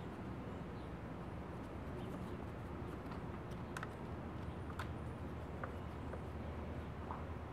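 Outdoor background: a steady low rumble with a few short, faint high chirps scattered through the middle and near the end.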